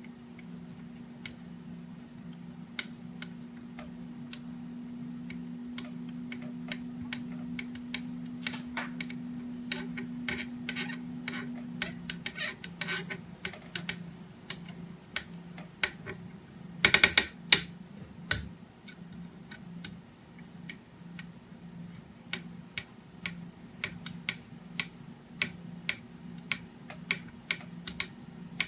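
Small clicks and taps from a hand tool driving the M2 screws that fasten a limit switch to its mount: scattered at first, thick and irregular in the middle with a quick rattle, then about one a second near the end, over a steady low hum.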